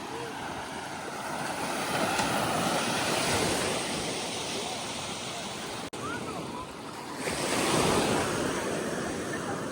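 Ocean surf breaking and washing up on a beach, the wash swelling about two seconds in and again, louder, about seven seconds in. The sound cuts out for an instant just before the second swell.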